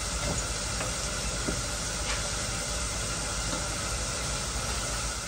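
Chicken roast in gravy sizzling steadily in an electric frying pan, with a few faint clicks of metal tongs against the pan.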